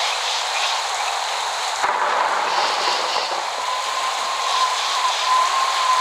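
Steady rain hiss. In the second half a thin, steady high tone rises out of it and holds for about three seconds.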